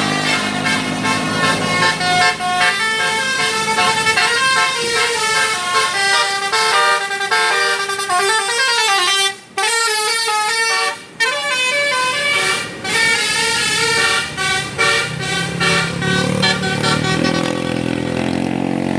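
A bus's telolet Basuri musical horn playing a fast melody of quickly changing notes, broken by two short gaps about nine and eleven seconds in. The bus's engine runs low underneath near the start and end.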